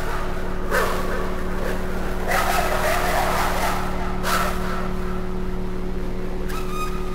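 Ambient soundtrack: a steady low hum under several swelling whooshes of noise, with a short pitched tone near the end.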